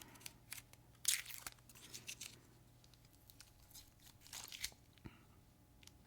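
Adhesive tape being peeled off a knife in a few short tearing pulls, the clearest about a second in and again past four seconds, with faint crinkling between.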